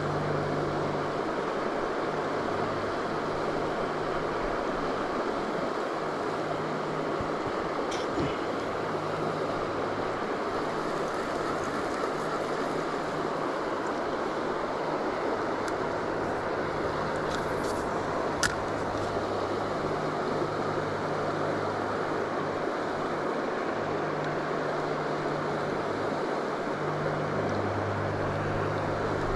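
River water rushing over rocky shoals, a steady noise, with a couple of short clicks about a third and two thirds of the way through.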